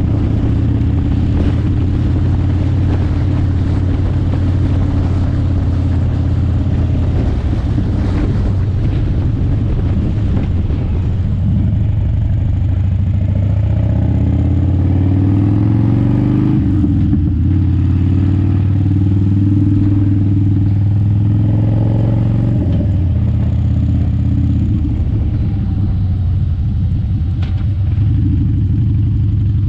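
Motorcycle engine running steadily under way, with wind and road noise over it; the engine note shifts in pitch a couple of times in the middle as the speed changes.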